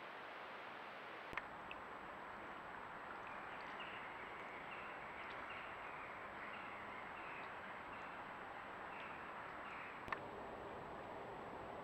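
Steady hiss of a trail camera's recording, with a sharp click at each cut between clips, once early and once near the end. Between about three and nine seconds in, an animal gives a faint run of about a dozen short, high, falling calls, roughly two a second.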